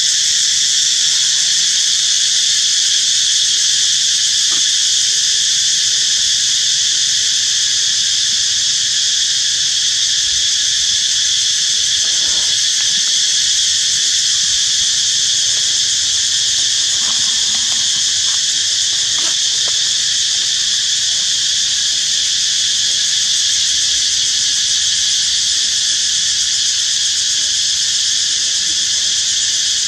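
Loud insect chorus, a steady high-pitched drone that holds unchanged throughout.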